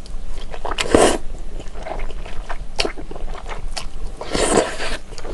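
Close-miked eating of thick, chewy Chinese glass noodles: a wet slurp about a second in and a longer one near the end, with sticky chewing and small mouth clicks between.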